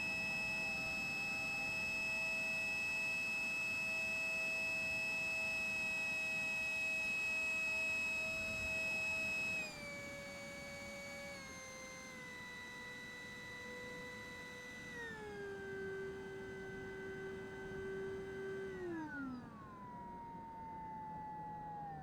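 Hoffman Magnetics Storm powered RC jet's motor and fan whining at a steady high pitch, then dropping in pitch in several steps as the throttle is eased back, with a falling glide near the end. It gets noticeably quieter at the first step, about ten seconds in.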